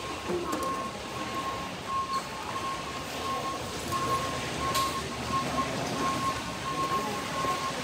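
Electric airport passenger cart's warning beeper sounding a regular run of short, high beeps over steady crowd noise as it drives slowly through the walking passengers.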